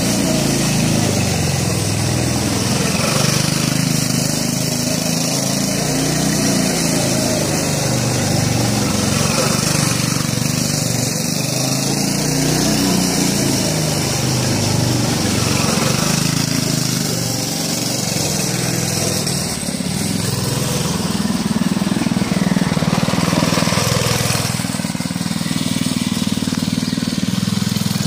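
Small petrol engine of a kids' off-road buggy running under way, its speed rising and falling as the buggy is driven around.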